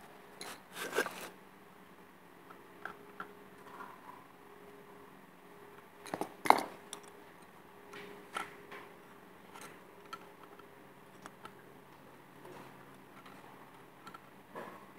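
Handling noise: scattered clicks, knocks and rubbing of a metal part and clothing close to the phone. The loudest knocks come about a second in and again about six and a half seconds in, over a faint steady hum.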